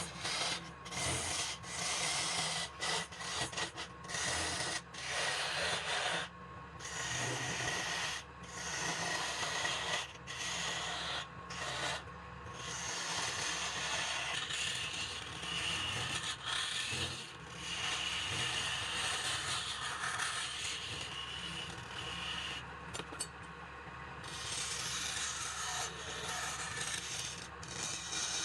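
Wood turning on a lathe: a hand-held turning tool scraping the spinning wood with a steady rasping hiss, broken every second or two by brief gaps where the tool comes off the work, over a low steady motor hum.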